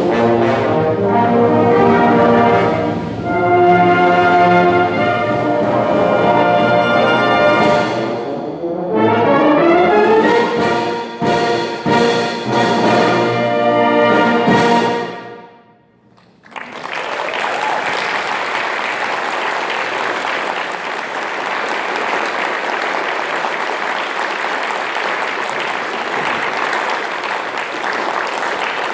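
Full brass band of cornets, horns, euphoniums, trombones and tubas with percussion playing the closing bars of a piece, with a run of short accented chords before it ends on a final chord about halfway through. After about a second of silence, audience applause starts and carries on steadily.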